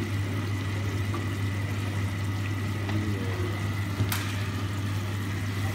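Chicken, asparagus, tomato and green pepper simmering and sizzling in oil and their own juices in a frying pan, over a steady low hum. A single sharp click about four seconds in.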